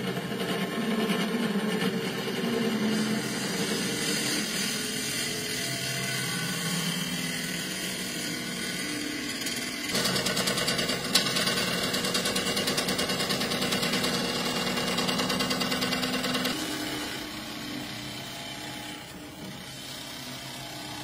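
Wood lathe running while a gouge cuts a spinning dyed wooden blank: a steady machine hum with the hiss of shavings peeling off. The sound changes abruptly about ten seconds in and again about sixteen seconds in.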